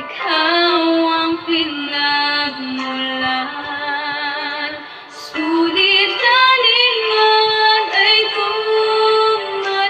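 A woman singing a slow prayer song, holding long notes with vibrato; the melody steps up to a higher pitch about halfway through.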